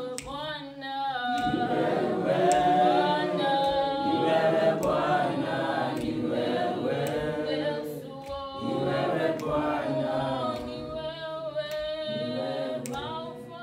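A choir of many voices singing unaccompanied, holding and gliding between sustained notes together.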